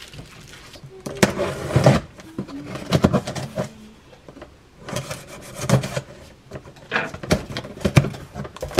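Cardboard delivery box being opened by hand: the packing tape slit with a utility cutter and the flaps pulled up, in several short bursts of scraping and rustling.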